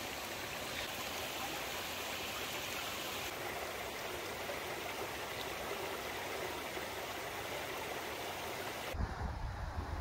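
A mountain stream running steadily, a continuous even rush of water. About a second before the end the water sound drops and an uneven low rumble takes over.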